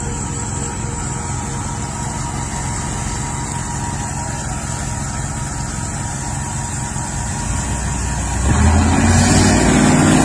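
A car running, a steady engine hum with road noise, growing louder near the end.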